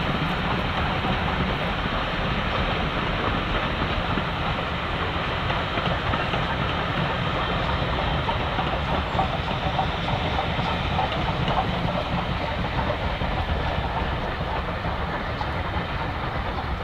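A train running past on the rails: a steady, loud rolling rumble and rush of wheels and coaches that cuts off abruptly at the end.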